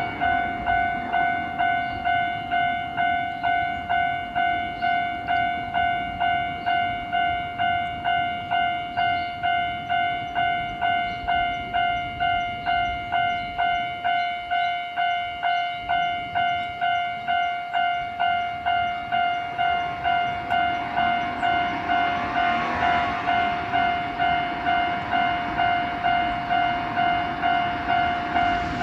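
Japanese level-crossing warning bell on the Keihan Main Line ringing its electronic ding-ding, about two strikes a second. From about 20 seconds in, the rumble of a train passing over the crossing builds up beneath the bell.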